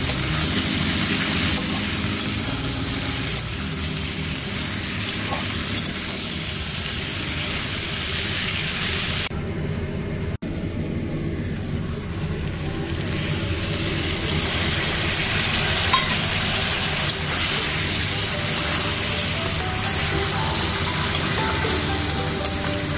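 Food sizzling as it fries in a pan, a steady hiss that drops out for a few seconds near the middle and then returns, under soft background music.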